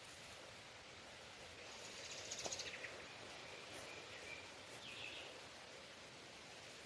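A small bird singing faintly outdoors: a short rapid trill about two seconds in, then two brief chirps, over a steady hiss of background noise.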